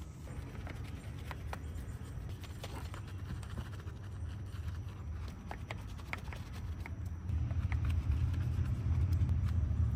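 Detailing brush scrubbing a soapy alloy wheel: scattered clicks and knocks as the brush works between the spokes, over a steady low rumble that grows louder about seven seconds in.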